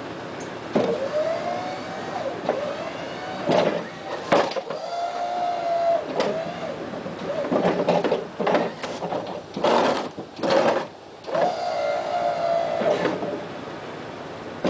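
Meyer E-60 H snow plow's electric hydraulic pump motor running in about five short bursts, several starting with a rising whine that settles into a steady hum, as the blade is raised and angled. Loud clunks come in between the runs. The motor has fresh brushes and is now turning the pump again.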